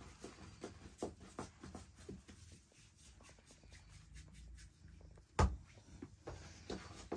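Hands working bread dough: a run of soft pats and taps as dough is pressed and shaped on a cloth. About five seconds in there is one louder knock.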